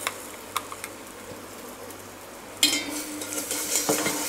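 Onions and ginger-garlic paste frying in oil in a steel pot, stirred with a steel spoon. A couple of light clicks come first, then the sizzling and stirring start suddenly about two-thirds of the way in and carry on.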